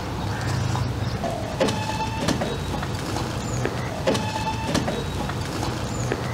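Concrete-dispensing machine's motor running steadily, with a recurring mechanical squeal and knock about every two and a half seconds, as wet concrete pours from its discharge pipe onto a steel form.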